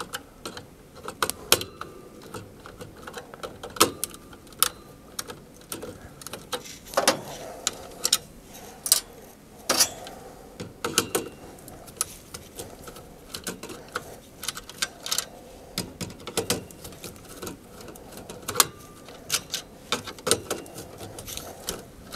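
Screwdriver clicking and scraping against the screw terminals of a variable frequency drive as its wires are loosened, in irregular small clicks and ticks.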